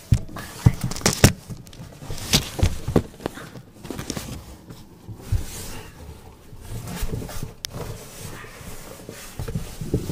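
Irregular knocks, thumps and rustling of a large cardboard box heard from inside it, loudest in the first second or two.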